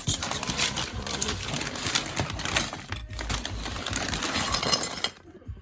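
Rustling packaging and small parts of a cold air intake kit clattering as they are handled and pulled from the box, a dense run of clicks and rustle with a short break about three seconds in.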